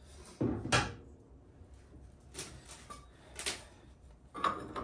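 Metal clanks of tools and suspension hardware being handled: a double knock about half a second in, the loudest, then single knocks roughly a second apart.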